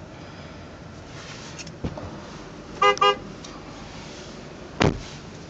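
Cadillac Escalade's horn tapped twice in quick succession about three seconds in, over the steady background of the engine running just after a cold start. Two single knocks, about a second before and two seconds after the toots.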